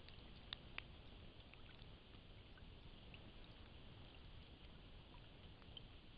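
Faint light rain through a trail camera's microphone: a steady low hiss with scattered soft drip ticks, and two sharper clicks about half a second in.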